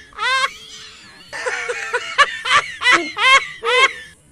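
High-pitched giggling: a run of short rising 'hee'-like laughs, about two to three a second, breaking off for a second and then starting again.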